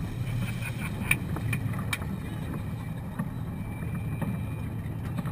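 Motorboat engine running at low speed, a steady low rumble, with water splashing against the hull and a couple of light knocks about one and two seconds in.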